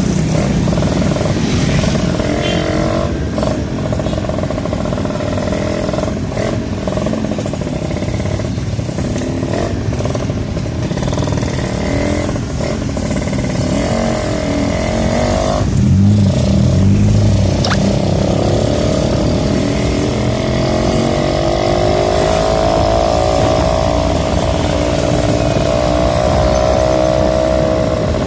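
Suzuki Tornado two-stroke motorcycle being ridden, over a steady rush of wind and road noise. Its engine note rises and falls with the throttle, climbing into a steadier higher tone in the last several seconds.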